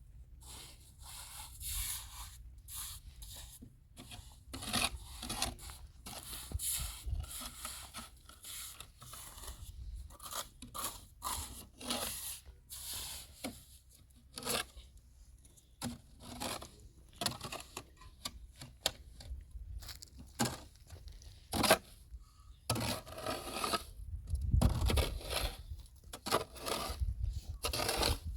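Irregular scraping, rubbing and tearing sounds of hand work, with a sharp knock a little past the middle and a few heavier thumps near the end.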